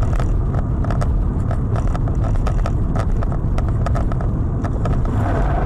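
Road noise inside a moving car, picked up by a dashcam: a loud, steady low rumble of tyres and engine with frequent sharp clicks and rattles.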